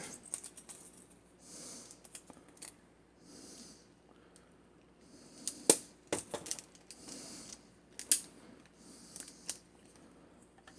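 Irwin Vise-Grip self-adjusting wire stripper being worked on speaker wire: small clicks and soft rustles, with two sharper snaps of the cutter, one about halfway through and one about three quarters through.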